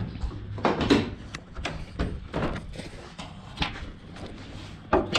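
A run of clicks and clunks as a 2000 Honda Civic's hood is unlatched and raised.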